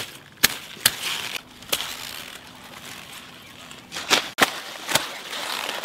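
A kitchen knife cutting through the crisp stems of bok choy at the root: a sharp snap with each cut, about six in all, with leaves rustling between them.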